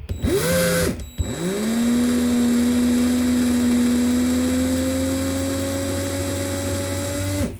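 Drill spinning a rotary leather-punch tube while it is polished with 2000-grit wet/dry sandpaper. It makes a short run of about a second, stops briefly, then spins up again into a longer steady run whose pitch creeps up slightly before it stops suddenly near the end.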